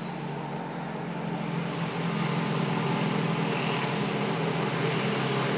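A steady low mechanical hum with a wash of noise over it, slowly growing louder over the first couple of seconds and then holding steady.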